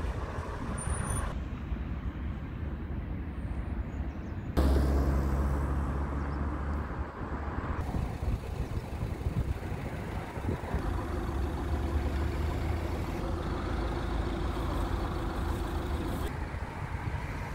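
Road traffic: engines of passing vehicles, steady throughout, with a louder vehicle coming in suddenly about four and a half seconds in and fading over the next few seconds.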